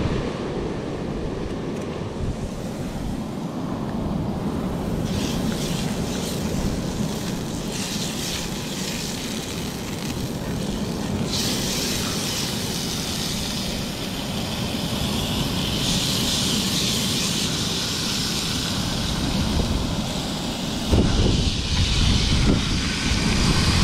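Wind buffeting the microphone over surf. About halfway through, pampo fish start sizzling as they are laid into hot oil in a frying pan on a portable gas stove, and the sizzle grows louder. A gust of wind comes near the end.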